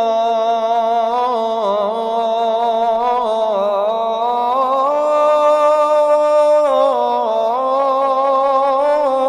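A muezzin's solo voice singing the adhan, the Islamic call to prayer, holding one long ornamented note on the drawn-out vowel of 'rasulullah'. The melody climbs about four seconds in and falls back about seven seconds in.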